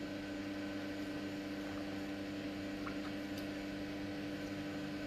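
Steady low mechanical hum with a constant tone, from a wall-mounted electric fan running, with a few faint ticks.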